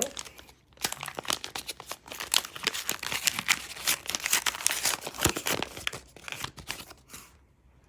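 A trading-card pack wrapper being crinkled and torn open: a dense run of crackling from about a second in, stopping near the end.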